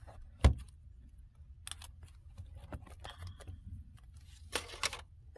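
Handling of a MacBook Pro wrapped in clear plastic film: a sharp knock about half a second in, then scattered light clicks and rustles, with a longer rustle near the end.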